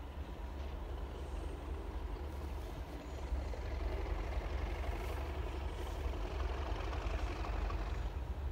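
Distant train approaching along the line: a steady rumble that grows louder about three seconds in.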